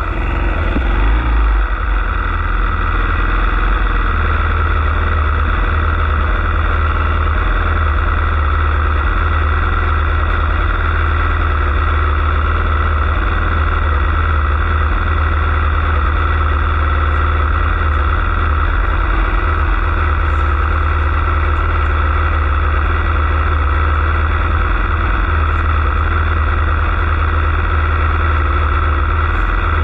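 Dirt bike engine idling steadily, heard close up from the bike the rider is sitting on.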